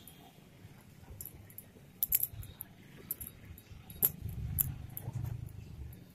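Scattered light clicks and small clinks from hands handling macrame cord and a metal ring, over soft rustling.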